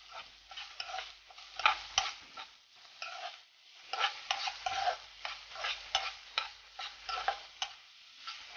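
A spatula stirring and scraping onions that are frying golden brown in oil in a pan: an irregular run of scrapes and clinks, several a second, over a light sizzle.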